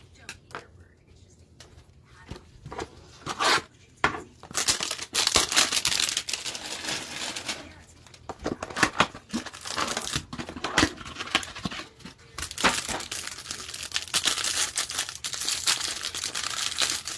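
A Panini Prizm hanger box of trading cards being torn open and the clear cellophane wrap on its card stack crinkled off by hands in nitrile gloves. The crinkling comes in two long spells, one about four seconds in and one from about twelve seconds, with scattered handling clicks before and between them.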